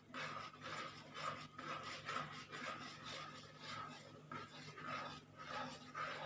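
Metal spoon scraping and stirring through thick coconut milk in an aluminium pan, in a rhythm of about two strokes a second, as the milk is cooked down for coconut oil.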